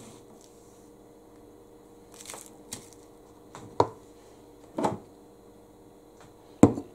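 Sharp knocks and clicks of containers and ingredients being handled and set down on a kitchen counter, four or five of them about a second apart, the loudest near the end, over a faint steady hum.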